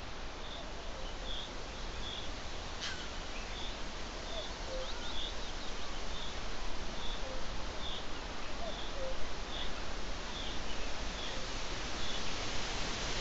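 A bird repeating a short high call about twice a second, with a single sharp falling note about three seconds in, over a steady hiss.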